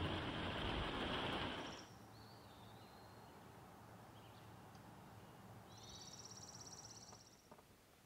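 Steady heavy rain hissing on the travel trailer, which cuts off suddenly about two seconds in, leaving a quiet outdoor background with a few faint bird chirps and a short high, rapid bird trill a little before the end.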